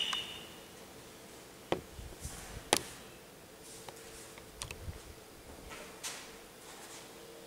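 A few scattered sharp clicks and taps in a quiet room, the two loudest about two seconds in and a second apart, with a faint steady hum from about halfway through.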